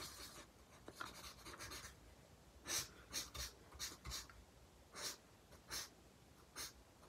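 Alcohol-based felt-tip marker stroking on paper: faint rubbing at first, then a series of short, separate scratchy strokes, about eight of them in the second half.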